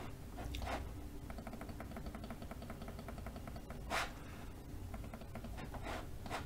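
Quiet room tone with a low steady hum, broken by a few short soft noises, the loudest about four seconds in.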